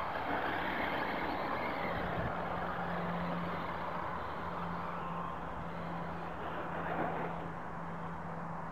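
HPI Bullet Flux MT electric RC monster truck running across loose dirt, its tyres and brushless motor loudest at first and fading as it drives away, over a steady low hum.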